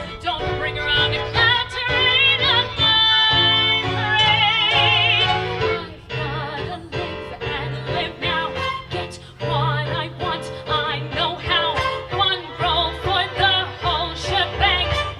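A woman singing a Broadway show tune over instrumental accompaniment, with wide vibrato on long held notes a few seconds in. The music eases off in the middle and picks up a more rhythmic beat near the end.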